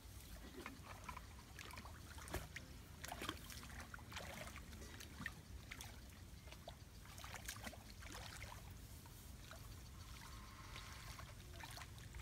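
Faint, scattered small splashes and rustles of wading through a shallow flooded rice paddy and poking the water with a stick, over a low steady rumble.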